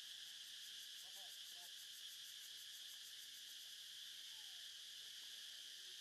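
Steady high insect drone, with a faint fast pulsing during the first few seconds. A few faint short calls rise and fall about a second in and again past four seconds.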